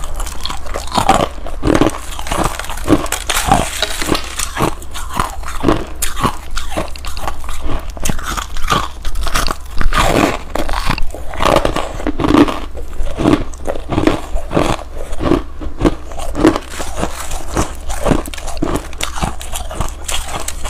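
Close-miked mouth sounds of freezer frost being bitten and chewed: packed ice crystals crushing between the teeth in a steady run of crunches, about two a second.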